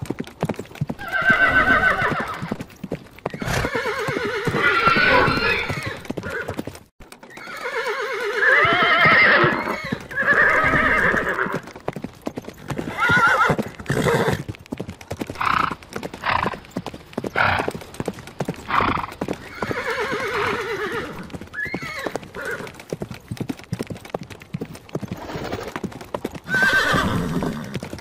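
Horses whinnying over and over: about half a dozen long, quavering neighs. Hooves clip-clop steadily underneath, and everything drops out briefly about seven seconds in.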